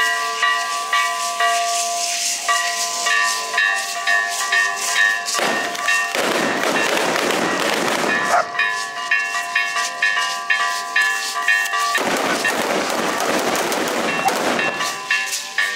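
Two hand-rung bells clanging over and over, with ringing tones at several pitches, interrupted twice by long stretches of crackling firecrackers going off.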